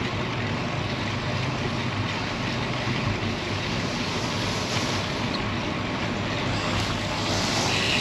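Steady wind rushing over the microphone, with road noise, while riding a bicycle on a gusty day.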